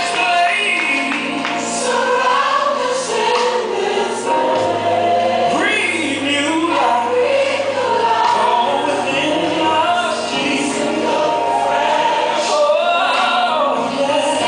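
A church choir singing a gospel worship song with instrumental accompaniment.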